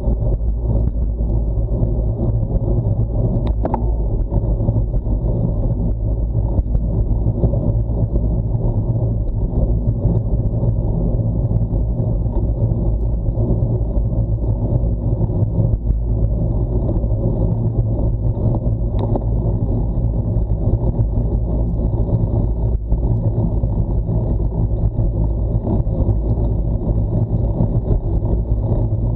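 Steady wind rumble buffeting a bike-mounted Garmin VIRB action camera's microphone while cycling on the road, with a couple of light clicks.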